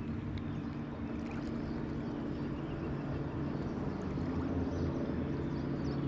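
Steady drone of a motorboat engine running out on the lake: an even low hum that grows slightly louder toward the end.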